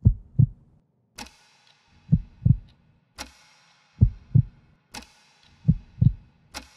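Heartbeat sound effect: four low lub-dub double thumps, about one every 1.8 seconds, each pair answered by a single sharp, ringing click.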